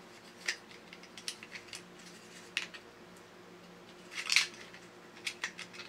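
Hard plastic clicks and clatters of 3D-printed parts being handled and pushed together as a gear motor with its cam linkages is worked into a printed frame. A few scattered taps, with the loudest cluster of knocks about four seconds in.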